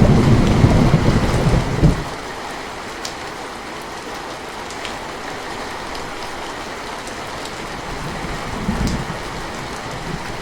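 Steady rain hissing, with a low rumble of thunder that dies away about two seconds in and a fainter rumble near the end. Scattered drops tick sharply through the rain.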